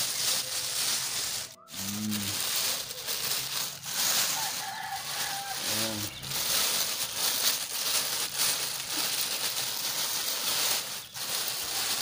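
Plastic bag rustling and crinkling as it is pulled down off a potted bougainvillea. Two short, low calls stand out against it, about two and six seconds in.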